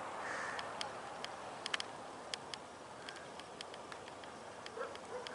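Quiet outdoor background with irregular, faint, sharp clicks, about a dozen scattered through. Near the end there is a short faint call from an animal in the distance.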